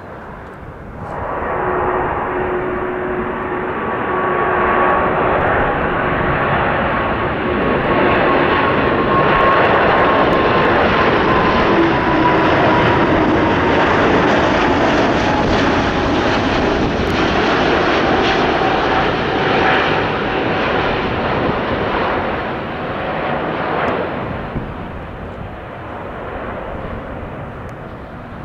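Airbus A340-600 with its four Rolls-Royce Trent 500 turbofans flying past: a loud jet engine rumble with a whine on top that cuts in abruptly about a second in. It stays strong through the middle, its engine tones sliding a little lower in pitch as the jet passes, then fades over the last few seconds.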